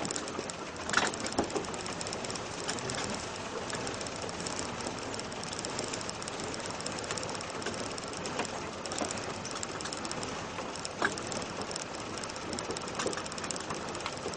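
Off-road vehicle's engine running steadily as it crawls over a rutted dirt track, with a fast, even mechanical ticking and a few sharp knocks.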